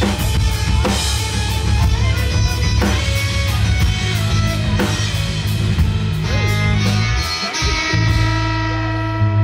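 Live instrumental rock band playing: electric guitar, electric bass and drum kit. The drum hits thin out about two-thirds of the way through, leaving guitar and bass notes ringing on.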